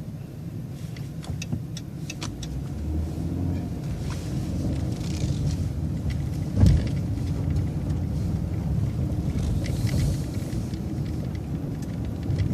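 City bus running, heard from inside: a steady low engine and road rumble with light rattling clicks and one loud knock about halfway through, as the bus pulls away from a stop sign and turns.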